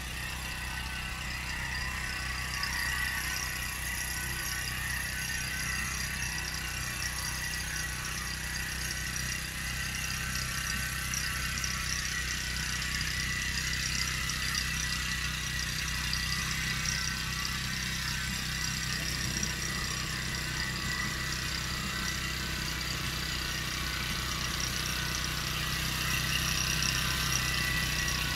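Small single-cylinder engine of a walk-behind farm machine running steadily as it pulls a roller drum across tilled soil, with a constant hum and a higher mechanical whir.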